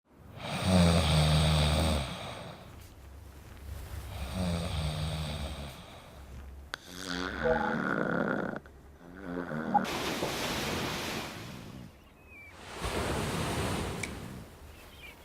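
Snoring in a repeating cycle, one snore every two to three seconds. The first snore is the loudest, with a low buzz. The later ones have a wavering pitch, and in the second half they turn into softer, airy snores without the buzz.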